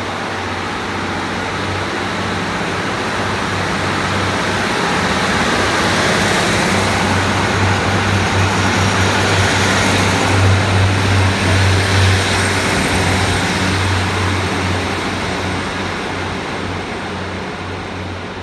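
British Rail Class 150 Sprinter diesel multiple unit (three-car 150001) pulling out past the platform: a low underfloor diesel engine drone with wheel-on-rail noise. It grows louder as the coaches pass close, about ten seconds in, then fades as the train draws away.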